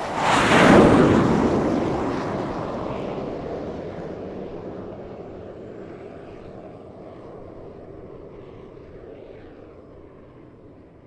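Jet aircraft passing close overhead: a loud roar swells up fast, peaks about a second in, then fades slowly and grows duller as the plane moves away.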